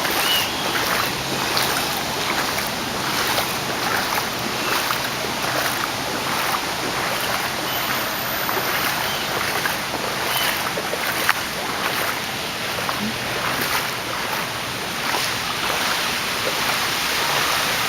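Someone wading through street floodwater, the water sloshing and splashing with each step over a steady wash of water noise.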